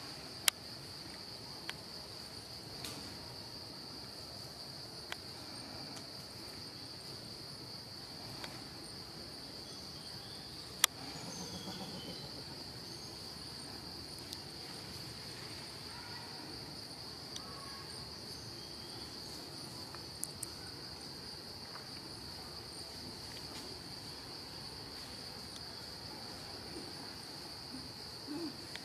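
Steady high-pitched drone of insects in the forest, with a few sharp clicks along the way.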